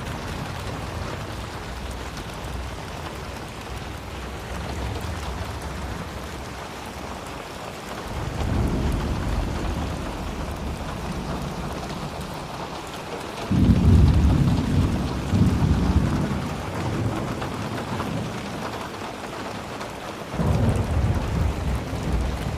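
Steady rain falling, with low rumbles of thunder: one about a third of the way in, a louder one that starts suddenly just past halfway, and another near the end.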